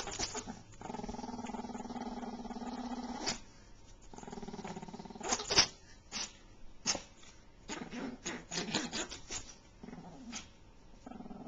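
Chihuahua growling in long, steady stretches while it worries a large plush stuffed toy. Between the growls come scattered sharp clicks and scuffs from the struggle with the toy.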